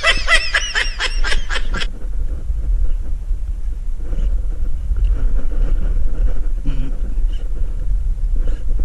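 A rapid run of high, wavering voice-like calls for about the first two seconds, over a steady deep rumble that then carries on alone.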